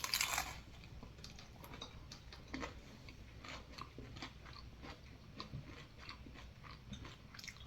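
A person chewing food with faint, irregular mouth clicks, after a short noisy burst right at the start.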